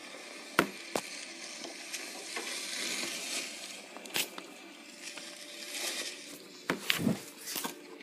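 Handling noise as plush toys are moved about by hand: rustling with a few sharp knocks, the loudest about half a second in and several close together near the end.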